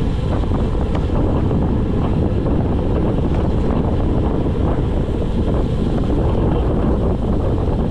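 Loud, steady wind rush on the microphone of a handlebar camera on a road bicycle coasting downhill at speed.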